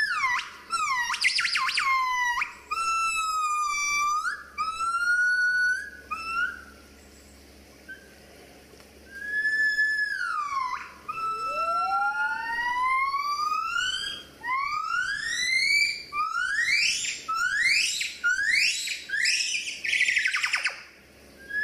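Crested gibbons singing: pure, whistle-like calls that swoop down in pitch, then after a pause in the middle long rising glides building into a quickening run of rising notes.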